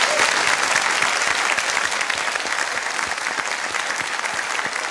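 Audience applauding steadily: many hands clapping, loudest at the start and easing off a little.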